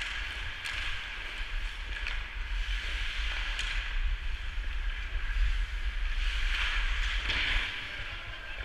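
Wind buffeting the microphone of a skater's action camera, a steady low rumble, with the scraping hiss of skate blades on ice and a few sharp clicks.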